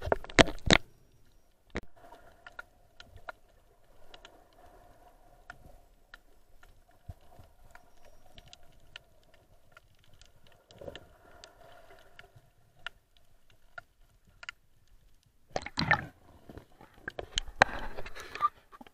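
Muffled sound of an underwater camera: scattered sharp clicks and knocks over a faint steady hum, with loud rushes of water noise just after the start and again near the end.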